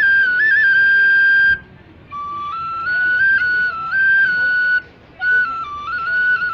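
Solo flute playing a Bollywood song melody, with held notes that step up and down in three phrases and short breath pauses about one and a half seconds and about five seconds in.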